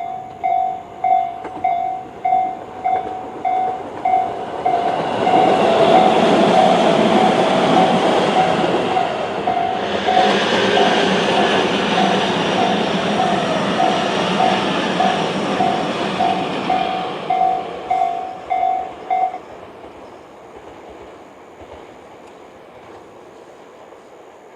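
Electronic level-crossing warning bell of the Tobu 'sound C' slow-tempo type, dinging steadily at a little over one ding a second, while a train runs through the crossing from about five seconds in until about eighteen seconds. The bell stops about nineteen seconds in, as the crossing clears after the train.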